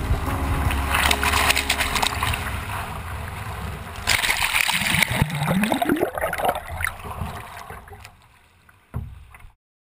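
Whitewater rushing and splashing around a surf kayak, close on a GoPro in its housing. About four seconds in it gets louder and churning as the camera goes into the foam, with a rising gurgle. It then dies down to soft lapping, with one knock just before the sound cuts off.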